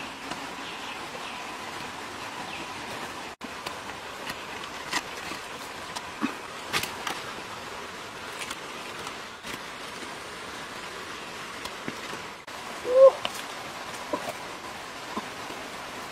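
Steady outdoor hiss with scattered small clicks and snaps as wild mushrooms are broken off a log and dropped into a bamboo basket. A short pitched call about thirteen seconds in is the loudest sound.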